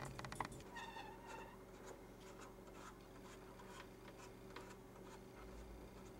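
Quiet room tone with a steady low hum, a short faint squeak about a second in, and light scattered clicks and scratches.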